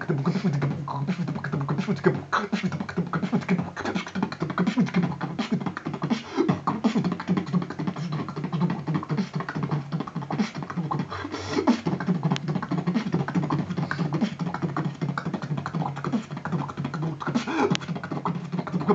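Solo beatboxing freestyle: rapid mouth-made kicks, snares and clicks over a sustained low hummed bass line, in a dubstep style.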